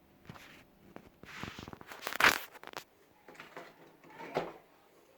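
Handling noises: rustling and scraping with a few light clicks and knocks, loudest a little over two seconds in.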